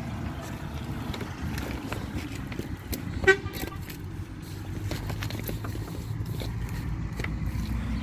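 A single short pitched toot about three seconds in, over a steady low rumble with faint scattered clicks.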